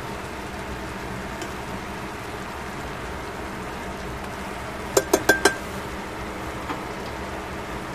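Metal tongs clinking four times in quick succession against a stainless steel pot about five seconds in, the last strike ringing briefly, over a steady background hiss.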